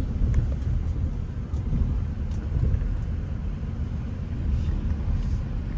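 Low, steady rumble of a taxi's engine and tyres on the road, heard from inside the moving car's cabin.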